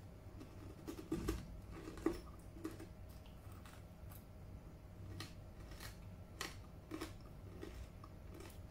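Someone biting and chewing a large, hard whole okra pod: irregular crisp crunches and clicks, a few every second. Her own word for the sound is "kleduk-kleduk".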